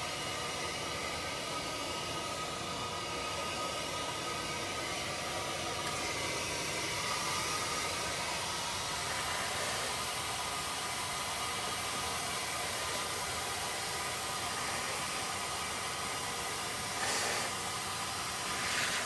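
Steady hissing noise with a few faint steady tones, and a brief louder rustle near the end.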